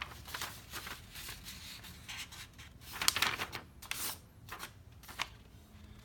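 A sheet of typing paper rustling and sliding as it is handled, in a string of short scratchy strokes, the loudest about three seconds in.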